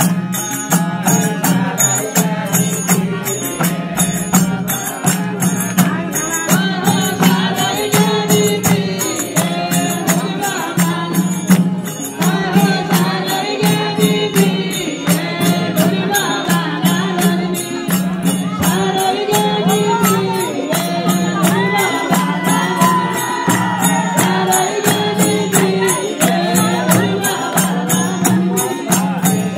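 Nepali bhajan (Hindu devotional song) sung by a group over a steady harmonium drone, with an even metallic percussion beat of about two to three strokes a second.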